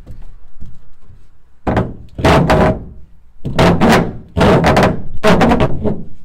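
Metal exhaust stack being shifted into place in a pickup bed, clanking and scraping against the sheet metal in four loud knocks, each under a second long with a short ring.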